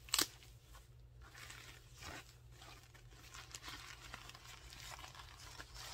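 Tissue paper and wrapping rustling and crinkling in irregular handling noises as a new handbag is unwrapped by hand, with one sharp snap just after the start.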